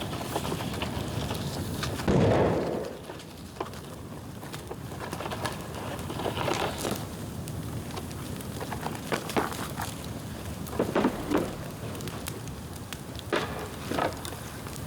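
Bonfire of dry bamboo crackling, with sharp pops scattered through and one louder burst about two seconds in.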